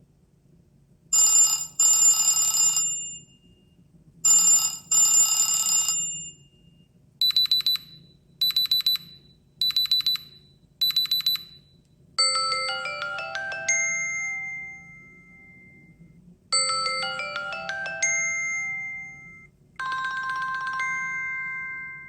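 Samsung Galaxy Watch 8 ringtones playing in turn. First comes a bright two-note electronic chime, played twice. Then four short high beeps, then a quick run of bell-like notes played twice, and near the end a chime chord that rings out and fades.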